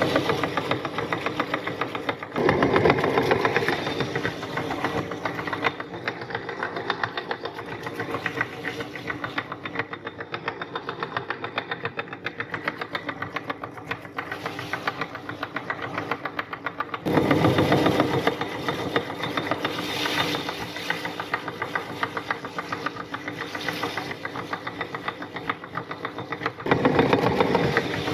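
Meat grinder running and crushing crunchy cookies, pushing the crumbs out through its plate: a steady mechanical hum with rapid, even rattling. It grows louder about two seconds in, again around seventeen seconds, and near the end.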